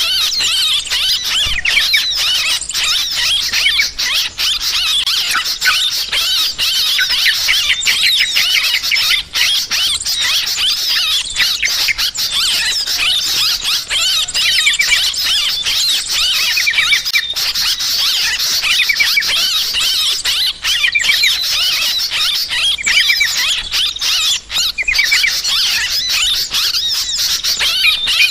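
A crowd of yellow-vented bulbuls (trucukan) giving noisy, agitated chattering calls, a dense overlapping stream of squeaky chirps without pause. Recorded as a lure for calling in bulbuls.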